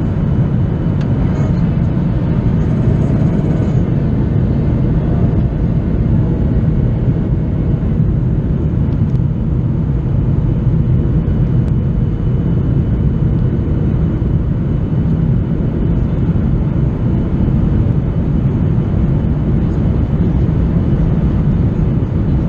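Cabin noise inside a Boeing 737-800 on approach, heard from a window seat over the wing: a deep, steady roar of the CFM56 turbofan engines and air rushing past the fuselage.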